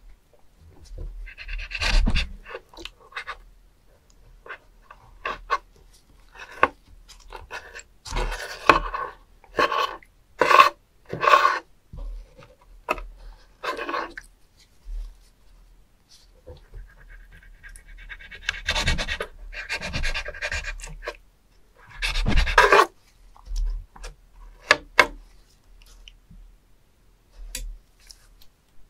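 A knife scraping and cutting on a wooden cutting board and wet handling noises as gloved hands work slimy live spoon worms (penis fish), in irregular bursts of scrapes and clicks.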